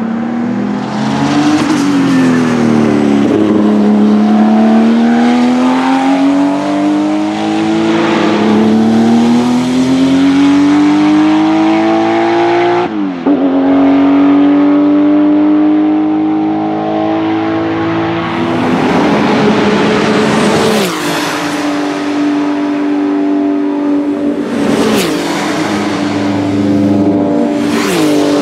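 Porsche 935 K3 Group 5 race car's twin-turbocharged 3.2-litre flat-six accelerating hard, its pitch climbing through the gears with a sharp drop at an upshift about halfway through. It then runs at steady revs, with two sharp exhaust bangs near the end.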